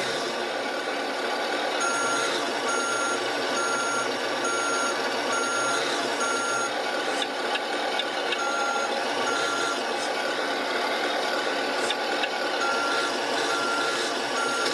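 An RC truck sound module's small speaker playing a simulated truck engine running steadily, with a reverse-warning beep repeating in runs of regular beeps over it, as the truck is driven in reverse.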